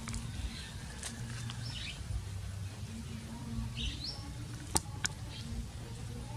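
Mouse squeaking: two short, high, rising squeaks about two seconds apart. A couple of sharp clicks follow about five seconds in.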